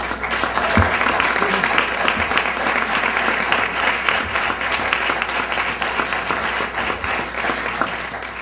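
Audience applause: many people clapping, breaking out all at once, then holding steady and thinning slightly near the end.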